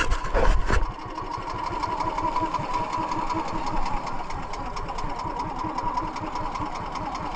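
Outrigger banca boat's engine running steadily under way, with a rapid, even beat and a steady whine over it. A couple of louder thumps come in the first second.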